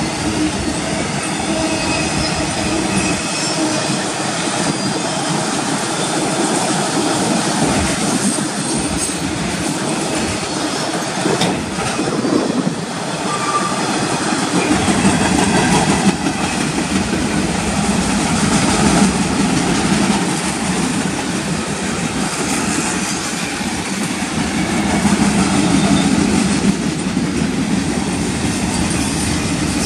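Freight cars of a manifest train (autoracks, tank cars and boxcars) rolling steadily past: a continuous rumble of steel wheels on rail.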